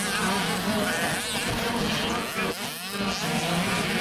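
Several 65cc two-stroke motocross bikes racing, their engines revving up and down with the pitch constantly shifting as the riders work the throttle. The sound dips briefly a little before three seconds, then comes back.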